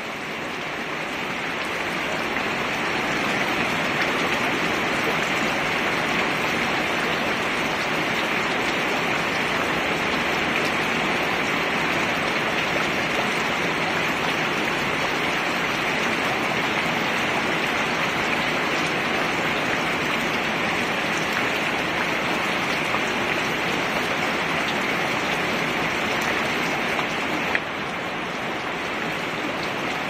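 Steady rain falling on a plastic lid, a dense even hiss of drops that builds a little over the first few seconds. A single click sounds near the end, after which the rain is slightly quieter.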